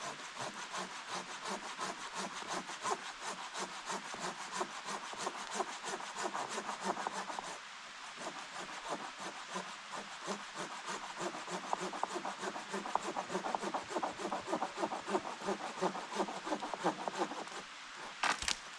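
Hand saw cutting wood in quick, even strokes, in two bouts with a short pause between them, followed by a single knock near the end.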